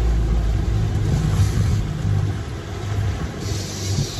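Boat engine running at trolling speed, a steady low rumble, with water rushing in the wake; a brief rise in hiss near the end.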